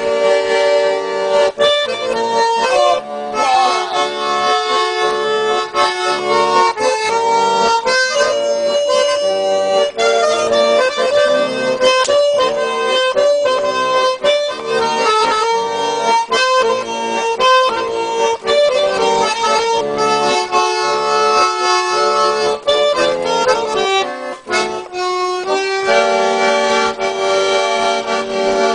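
Instrumental break of a song with no singing: sustained chords with a steady rhythmic pulse.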